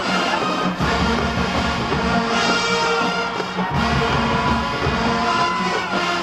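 Marching band playing a loud, brass-heavy number. The deep low part drops out twice and comes back in.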